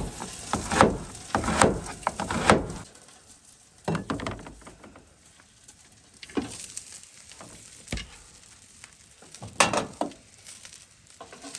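Cleaver chopping an onion on a board: three sharp strokes about a second apart near the start, then a few sparser, quieter cuts.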